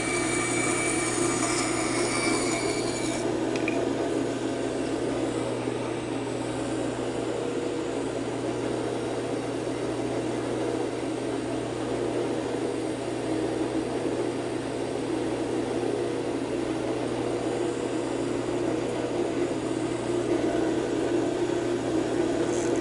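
Band saw with a 3/16-inch blade cutting through a block of spalted wood for about the first three seconds, then running free with a steady hum. The cutting sound starts again near the end.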